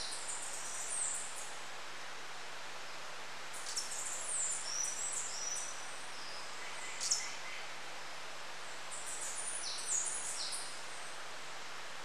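White-tailed sabrewing hummingbird giving bursts of high, squeaky chirps and twitters, four times, over a steady background hiss.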